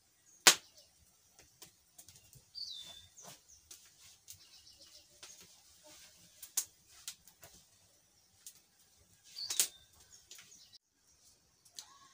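Open wood cooking fire crackling, with scattered sharp pops and ticks; the loudest comes about half a second in and another near ten seconds. A couple of faint bird chirps sound between them.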